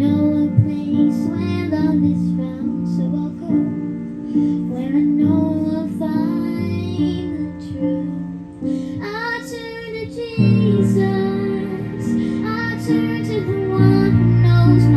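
Worship song: young female voices singing over acoustic guitar.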